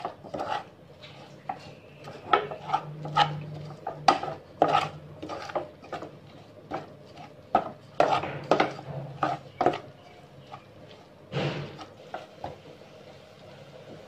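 Wooden spatula stirring and scraping a thick shredded mixture in a stainless steel saucepan, with quick, irregular scrapes and knocks against the pan, several a second.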